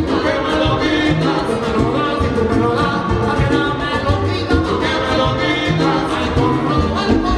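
Live salsa band playing, with several male singers singing together into microphones over brass and Latin percussion.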